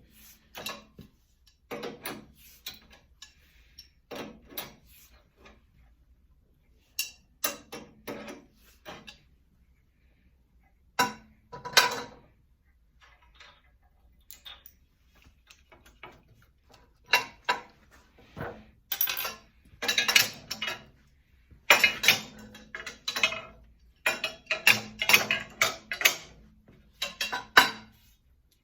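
Irregular metal clanks and knocks as the guard of an old Acme stomp shear is worked loose and knocked apart with hand tools. The strikes come sparsely at first, then thicker and louder in the second half.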